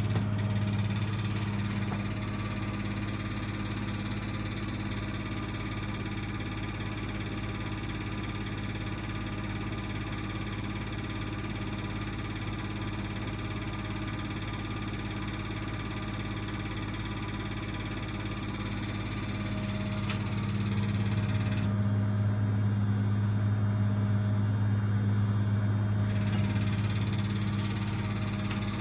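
Bosch WVH28360GB washing machine spinning: a steady deep drone and hum, the funny noise it makes on the spin. It swells louder about twenty seconds in and eases off near the end.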